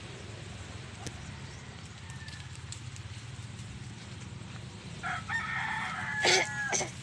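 A rooster crowing, one drawn-out call of about two seconds starting some five seconds in, over a steady low hum.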